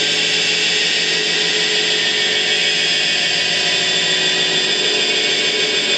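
Dense, steady electronic noise drone, a wall of hiss with many held tones inside it, played live on tabletop electronics in a noise-music set.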